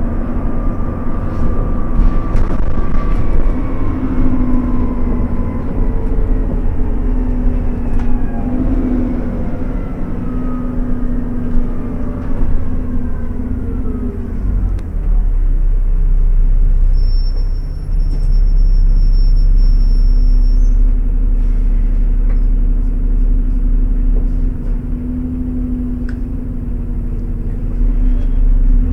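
A single-deck bus's engine and drivetrain heard from inside the passenger saloon as the bus is driven hard at road speed, with road rumble underneath. A whining note falls slowly in pitch over the first half and then settles into a steadier, louder engine note.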